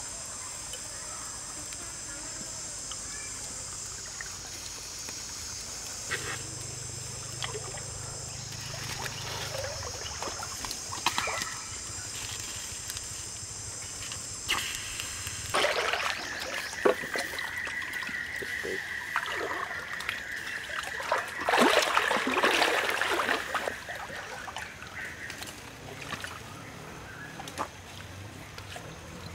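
Forest stream trickling and splashing, with scattered clicks. A steady high-pitched animal chorus runs over it and stops about halfway; a pulsing trill then holds for several seconds.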